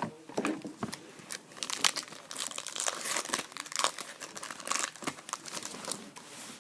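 Trading-card pack wrapper being torn open and crinkled by hand: a dense, irregular run of sharp crackles.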